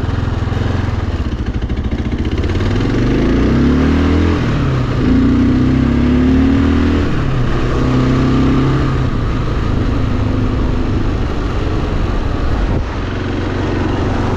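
Kawasaki KLR650's single-cylinder engine running while riding, revving up in a few rising pulls about three to four seconds in, then settling to a steadier cruise, over a constant rush of wind and road noise.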